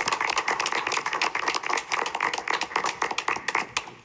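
A small group of people applauding: quick, overlapping hand claps that stop just before the end.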